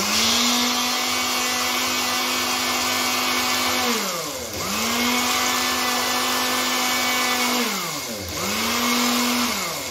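Electric mixer grinder with a stainless steel jar, grinding mint and coriander with yogurt and a little water into a wet chutney. The motor runs with a steady hum in three bursts: about four seconds in and again about eight seconds in, its pitch sags as it slows, then climbs back as it speeds up again. It stops just before the end.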